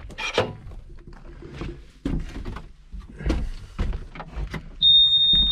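Knocks and clunks inside a Bobcat E26 mini excavator cab as the operator settles in. Near the end a steady high-pitched warning buzzer sounds for about a second at key-on, just before the engine is started.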